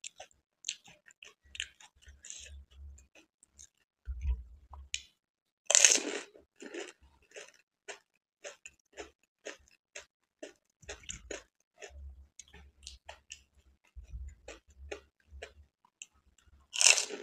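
Close-up chewing of pani puri: crisp puri shells crunching, with many small wet mouth clicks throughout. A louder crunch comes about six seconds in and another near the end as a whole puri goes into the mouth.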